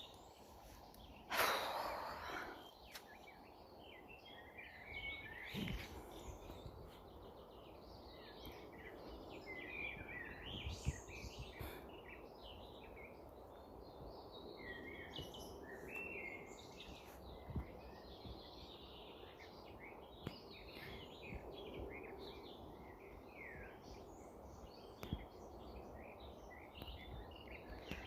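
Several woodland birds singing and chirping together, a steady overlapping mix of short calls and trills over a low background hum. A loud rustling burst comes about a second and a half in, with a few soft knocks later.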